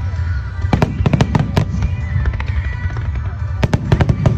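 Fireworks display: aerial shells bursting over a continuous low rumble of launches and explosions, with a quick volley of sharp bangs about a second in and another near the end.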